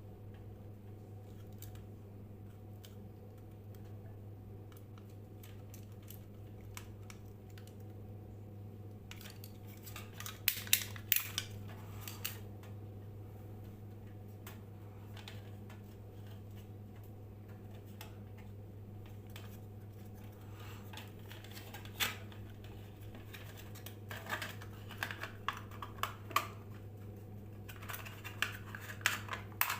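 Steady low electrical hum, the kind of mains-frequency hum a ceiling fan or inverter gives on inverter power, under scattered small sharp clicks and clinks of handling work. The clicks come in clusters after about ten seconds, once just past twenty seconds, and again several times near the end.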